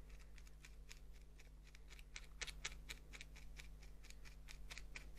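Faint, rapid stabbing of a felting needle through wool into a felting pad, about four to five stabs a second.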